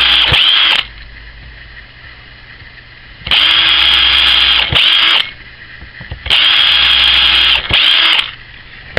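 Cordless drill with a headless panel pin as its bit, drilling small holes through a wooden block. The motor runs at full speed in three bursts: one ending within the first second, one from a few seconds in and one near the end. Each burst pauses briefly and starts again just before it stops.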